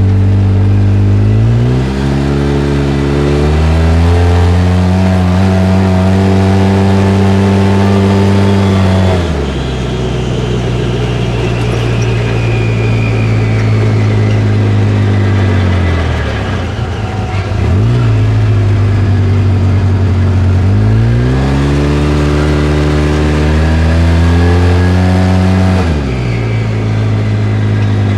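Polaris RZR side-by-side engine and drivetrain under repeated acceleration and deceleration: the engine note climbs in steps for several seconds, falls as the throttle comes off, then climbs and falls again near the end. On deceleration, around the middle, a wooshing/grinding noise comes through whose cause the owner has not found.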